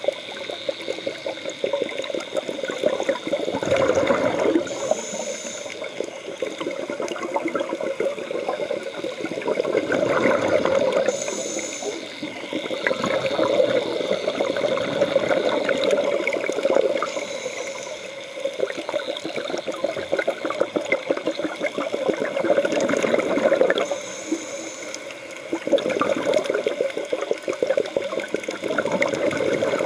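Scuba divers breathing through their regulators, heard underwater: each exhalation is a rush of bubbles about every six seconds, with a short high hiss of the regulator on each inhalation in between.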